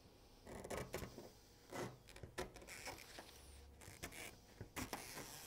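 Faint rustling and scraping of roller blind fabric and locking tape being handled and trimmed, in a few short bursts.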